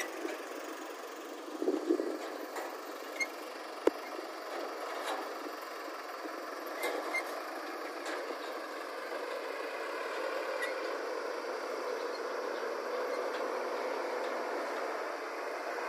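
Diesel engines of a JCB 3DX backhoe loader and dump trucks running steadily, with a few sharp knocks in the first four seconds.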